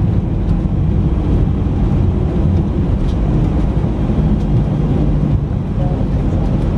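Airbus A320 cabin noise during the landing rollout: a loud, steady low rumble from the engines and the wheels running along the runway as the jet slows down.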